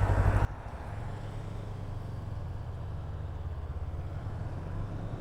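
Honda CB500X parallel-twin motorcycle engine running with a fast pulsing rumble; about half a second in, the level drops suddenly to a quieter, steady low hum.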